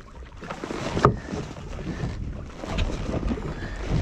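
Wind buffeting the microphone on a small open boat, an uneven low rumble, with small handling clicks and one sharp click about a second in.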